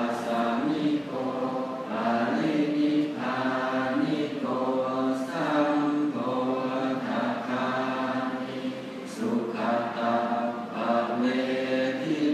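Thai Buddhist monks chanting Pali verses in unison for the morning chanting service (tham wat chao). The voices hold long phrases on a few steady pitches, with short breaks for breath between lines.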